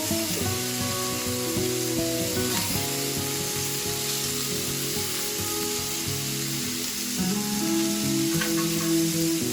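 Kofte meatballs sizzling as they fry in oil in a pan, a steady hiss, under background music with held notes.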